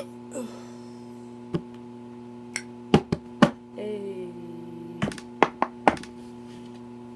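Several sharp knocks and taps of objects being handled, with a short sound falling in pitch about four seconds in, over a steady low hum.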